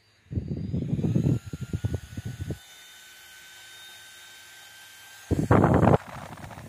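JisuLife Pro1 handheld fan's small motor running with a thin steady whine that creeps up in pitch as it spins up. Loud handling knocks in the first two seconds, and a short loud noisy burst near the end.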